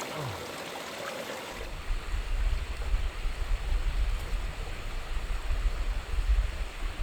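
Steady rush of flowing water, like a mountain stream. About a second and a half in, a loud, gusty low rumble comes in over it and keeps surging, the way wind or handling does against a microphone.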